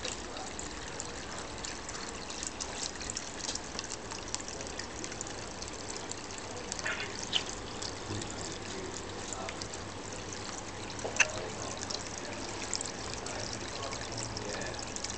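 Water running down the face of a wall-mounted water feature and splashing into the trough at its foot: a steady trickle, with a couple of brief sharp sounds about seven and eleven seconds in.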